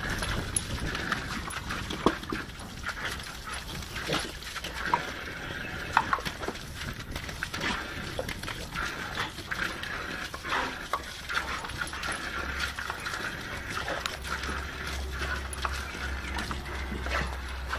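Several American Staffordshire terriers playing excitedly, whining and yipping, with two sharp, loud knocks about two and six seconds in.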